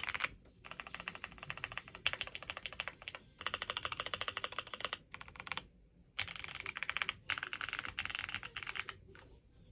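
James Donkey R2 mechanical keyboard in stock form being typed on quickly: a rapid clatter of keystrokes in several runs with short pauses between them, the longest pause a little past halfway.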